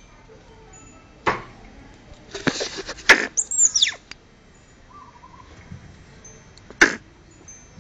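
A small pet mammal giving short, sharp barking calls at a dry banana leaf: one about a second in, a quick cluster around two to three seconds, then a high call falling in pitch, and one more sharp bark near seven seconds.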